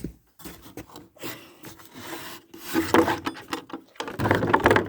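Wooden barn door being dragged open, scraping and rubbing in uneven bursts, loudest about three seconds in and again near the end.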